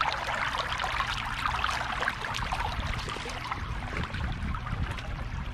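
Shallow creek water trickling and splashing close to the microphone: a steady rush broken by many small splashes and gurgles.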